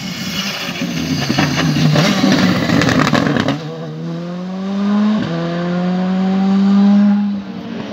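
Rally car engines at full throttle. First a car passes at speed. Then an engine pulls hard away, its note climbing, dropping briefly at a quick upshift about five seconds in, and climbing again until the throttle is lifted near the end.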